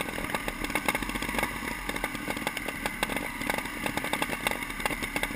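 Off-road motorcycle engines running at low revs close by, a steady buzz broken by many irregular sharp clicks and pops.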